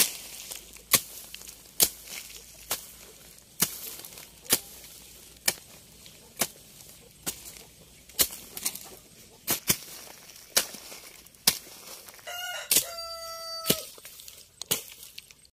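A hoe chopping into hard soil with sharp, regular strikes about once a second. About twelve seconds in, a rooster crows once, for about a second and a half.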